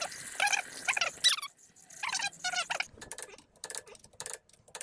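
Coolant glugging and splashing as it is poured from a plastic jug into a funnel, the pitch of the gurgle bending up and down. From about three seconds in, a quick run of sharp metallic clicks and taps from a wrench on the wheel nuts.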